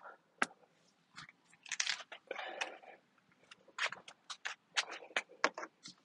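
Plastic interior door trim piece being pried up and off a Ford Mustang door: a run of irregular sharp clicks, snaps and crunching creaks of plastic and its retaining clips.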